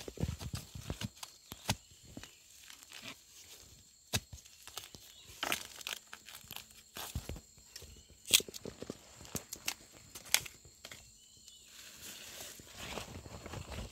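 Dry leaf litter and bamboo debris rustling and crackling, with scattered sharp knocks and snaps, as a blade digs and chops into the forest floor at the base of a bitter bamboo shoot.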